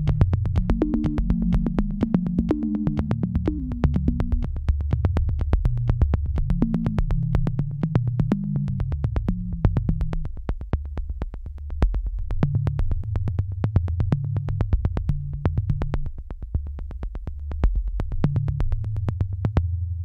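Background electronic music: a synthesizer tune over a low bass line with a steady beat.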